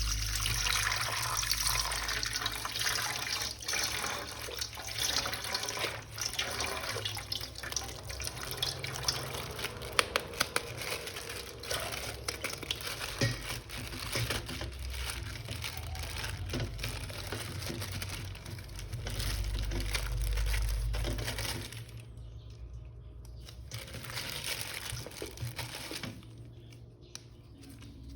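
Water running and splashing as a plastic toy figure is washed, with small clicks and knocks of plastic. The water sound drops away about six seconds before the end.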